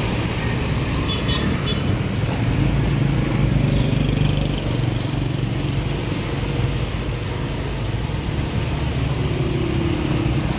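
Road traffic driving through shallow floodwater: a truck and motorbikes running with a steady engine hum, tyres splashing through the water.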